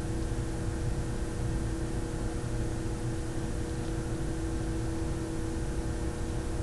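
A steady hum holding one tone, with an even hiss underneath; no distinct cutting or handling sounds stand out.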